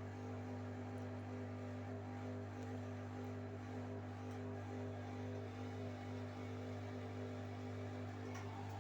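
Bosch Series 4 washing machine in its final spin, the drum and motor humming steadily. The owner reckons the spin is only about 600 rpm, short of the 1000 it is set for.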